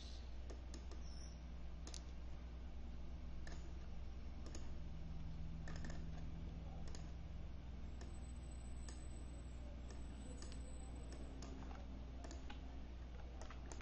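Computer mouse clicking, scattered clicks about once a second, over a faint steady low hum.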